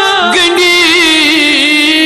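A voice singing a Kashmiri naat in praise of the Prophet, holding long drawn-out notes with vibrato and moving to a new note shortly after the start.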